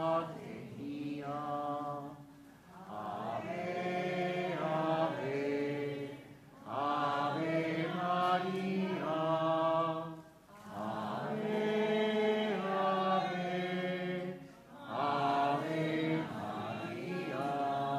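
Slow, unaccompanied singing of a hymn led by a man's voice, in five long held phrases with short breaths between them.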